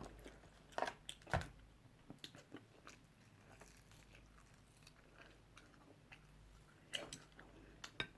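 A person chewing and biting food, with scattered faint crunches and clicks, a few near the start and a few more near the end.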